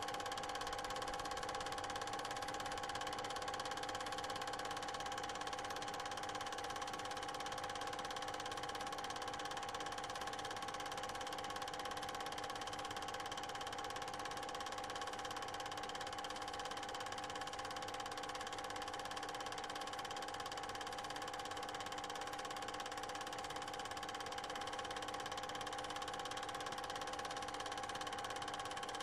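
A steady machine hum made of several held tones over a faint hiss, unchanging in level, with no other events.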